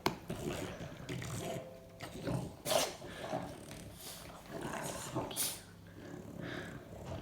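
Pet dog making throaty vocal noises in a series of irregular bursts while being greeted, with a few sharp clicks or knocks among them.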